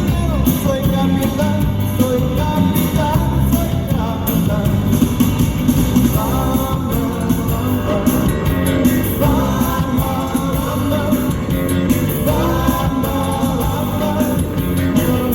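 Upbeat music with a steady beat and a singing voice.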